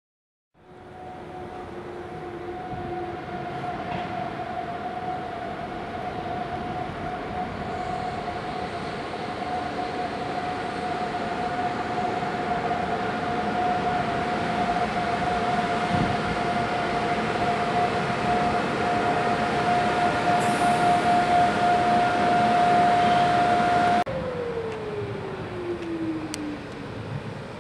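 Electric locomotive drawing in slowly, its running noise rising, with a steady high whine over it. Near the end the whine cuts off and a lower tone slides down over about three seconds as the locomotive slows.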